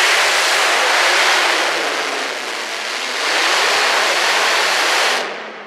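Competition pulling tractor's engine running hard under load as it drags the weight-transfer sled, easing briefly in the middle, then dropping away suddenly near the end as the pull ends.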